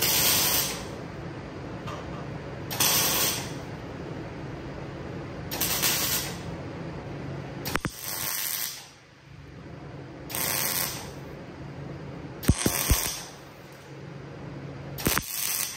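Electric arc welding in short bursts, about seven of them, each under a second and a few seconds apart, as pipe braces are welded to steel table legs. A few sharp clicks fall between the bursts, over a steady low hum.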